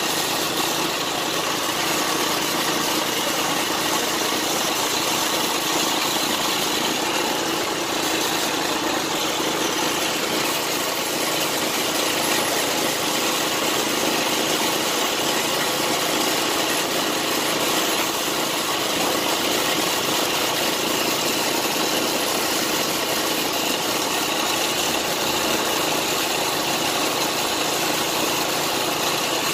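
Air compressor running steadily with a constant hum and hiss, supplying air to a gravity-feed paint spray gun.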